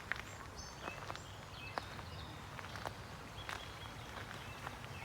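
Bewick's wren singing faintly, a few short high notes near the start, over footsteps on a path at about one step a second and a steady low outdoor rumble.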